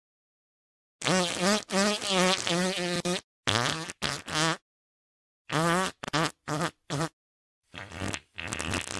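A woman's voice making wavering, warbling squeals in several bursts with short gaps between them, the pitch wobbling rapidly up and down.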